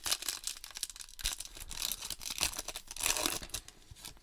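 Wrapper of a trading-card pack being torn open and crinkled: a run of rustling crackles, louder about two and three seconds in.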